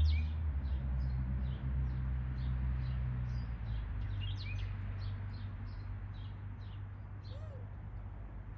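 Backyard songbirds chirping over and over with short, quick notes, several birds calling at once. Under them a low rumble fades away during the first half.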